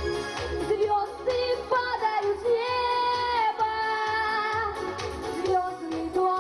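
A girl singing a pop song into a microphone over accompaniment with a steady beat. About two and a half seconds in she holds one long note for roughly a second before the melody moves on.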